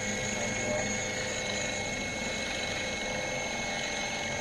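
Small DC motor of a servo trainer running steadily, with a constant whine and hum, while loaded by an eddy-current brake.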